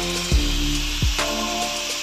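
Instrumental hip-hop beat with deep bass hits about every three-quarters of a second. Underneath it, an angle grinder runs faintly, cutting into a bolt or bracket at a motorcycle swing arm.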